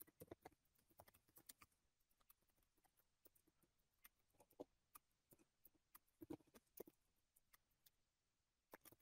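Faint, irregular clicks of computer keys being typed, a few at a time with pauses between them, over near silence.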